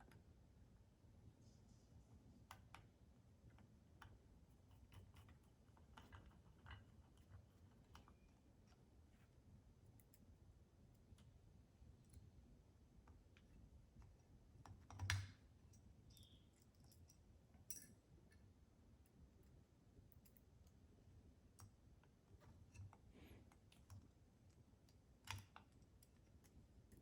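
Faint scattered clicks and small taps of metal parts and screws being handled and fitted by hand, with one louder knock about halfway through; otherwise near silence.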